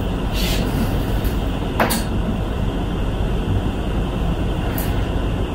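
Knife slicing raw chicken breasts on a cutting board, with three short knocks of the blade against the board, the sharpest near two seconds in. A steady rushing background noise runs under it.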